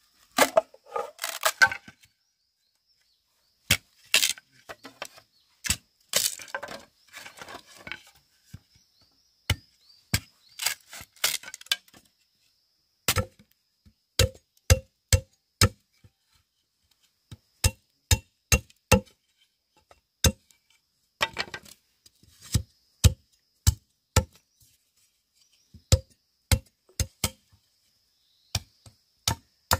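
Bamboo being chopped with a hand blade: sharp strikes in runs of about two a second, with stretches of rustling and scraping as the bamboo is handled between strokes.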